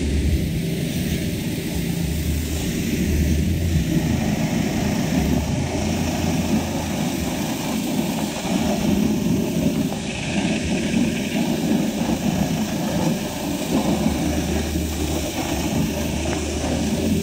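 Pressure washer running: a steady low motor hum with the hiss of the high-pressure water jet spraying against a pickup truck's alloy wheel, tyre and wheel arch.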